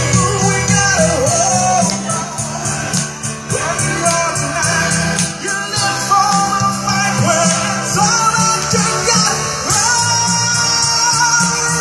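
Music played loud through PA speakers, with a man singing into a microphone over a steady bass line and beat.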